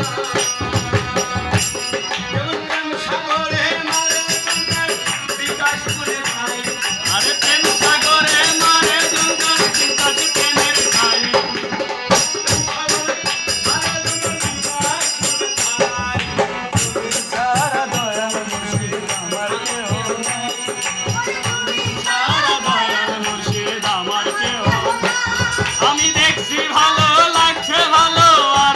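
Bengali bicched gaan, a folk song of separation: a man sings to a harmonium, with other voices joining in and a steady rattling percussion beat.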